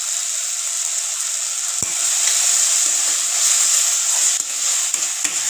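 Chopped onions, tomatoes and green chillies sizzling in hot mustard oil in a kadhai. A spatula stirs and scrapes against the pan from about two seconds in, making the frying louder.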